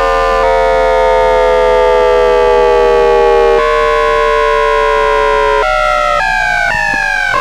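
Inverter whine of the MBTA 1800 Series' General Electric two-level GTO-VVVF traction drive under electric braking, recorded by inductor pickup: a chord of steady tones that slowly falls in pitch as the train slows. The chord jumps in steps as the synchronous PWM shifts from advanced multi-pulse into 15-pulse mode, and then into 21-pulse and higher modes in quick succession near the end, heading toward the 535 Hz asynchronous mode. A steady low hum runs beneath it.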